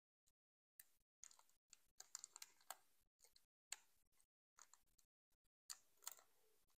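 Near silence with faint, scattered crinkles and clicks from a Pokémon booster pack's foil wrapper as fingers pick at its sealed top edge, trying to tear it open by hand.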